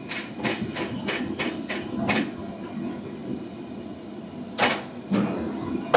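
Kitchen utensils clattering in sharp knocks: a quick run of about eight in the first two seconds, then a few louder single knocks near the end.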